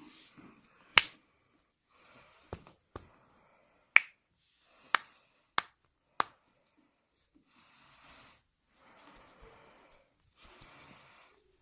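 Joints cracking during a chiropractic adjustment: about seven sharp pops in quick succession over the first six seconds, two of them much louder than the rest. Soft hissy sounds follow.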